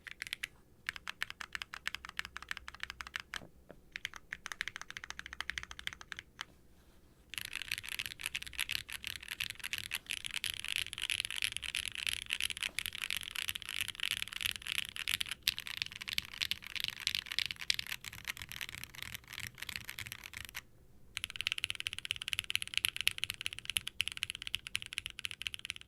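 Typing on a Qwertykeys Neo80 Cu mechanical keyboard with NovelKeys Classic Blue linear switches, lubed and without dampening foam, under GMK ABS keycaps. There is rapid, continuous keystroke clacking with a few brief pauses. The typing grows faster and denser about seven seconds in.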